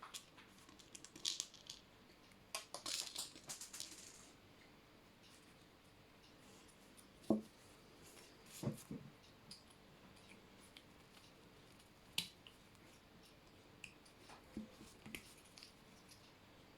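Faint, scattered clicks, small plastic-and-metal knocks and brief scraping from handling a 3D-printed percussion-cap capper at a black powder revolver's cylinder. There is a cluster of rustling clicks in the first few seconds and a sharper knock about seven seconds in.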